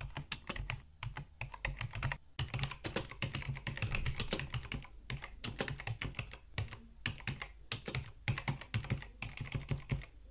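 Typing on a computer keyboard: quick, irregular key clicks with short pauses, over a low hum.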